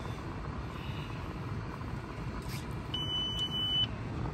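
Steady low rumble inside a car's cabin. About three seconds in, a single steady high-pitched beep lasts just under a second.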